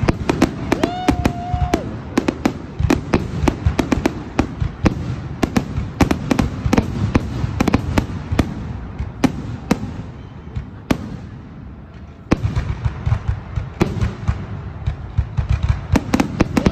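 Fireworks going off in rapid succession: a dense run of bangs and crackles that thins out about nine seconds in and starts again with a sharp bang about twelve seconds in.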